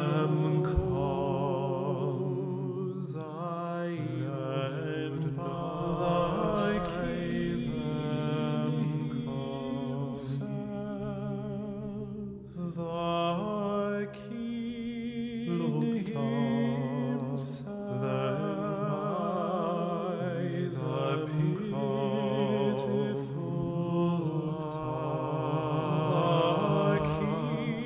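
Sound installation of several layered singing voices holding long, overlapping chant-like notes with a wavering vibrato.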